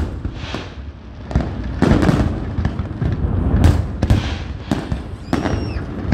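Aerial fireworks going off: a string of sharp bangs and booms, irregularly spaced and several close together at times, over a continuous low rumble.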